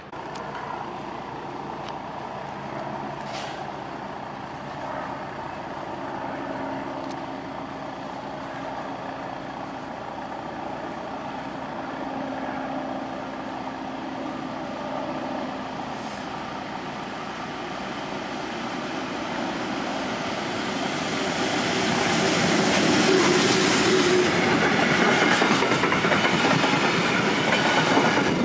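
Electric freight train approaching through the station and passing close. It grows steadily louder, swelling from about twenty seconds in as the wagons carrying tank containers go by with the rhythmic clatter of wheels over the rails.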